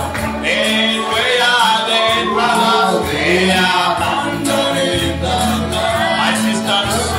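Gospel worship song: voices singing together over instrumental backing with sustained low bass notes.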